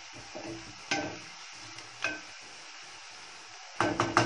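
Onions frying in hot oil in a pan, a steady low sizzle, with a metal utensil knocking against the pan: single knocks about one and two seconds in, then a quick run of knocks near the end.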